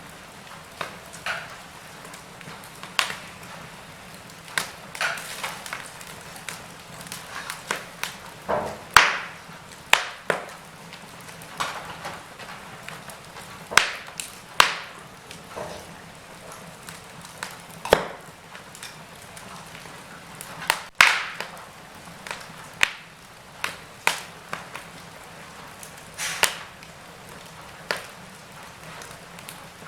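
Wood fire in a fireplace crackling: irregular sharp pops and snaps, a handful of them louder, over a faint steady hiss.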